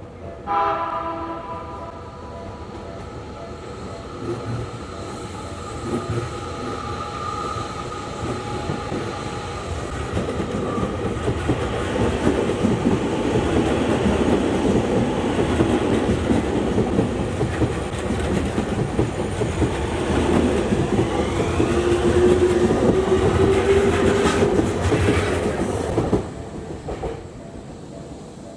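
Tokyu Toyoko Line electric train passing over a level crossing, its wheels clattering over the rails. The rumble builds to its loudest as the cars go by, then drops off abruptly near the end.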